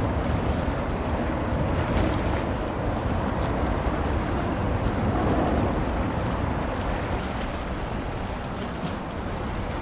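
Wind buffeting the microphone over the steady wash of waves on open water, with a low rumble and no clear engine note.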